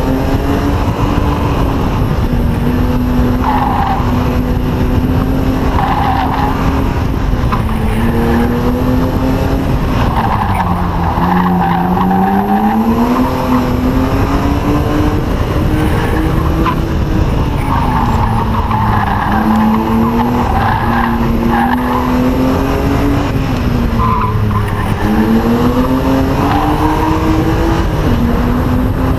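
1998 BMW E36 M3's 3.2-litre straight-six driven hard, its pitch rising and falling repeatedly as the car accelerates and slows for corners. Tires squeal in several spells through the turns.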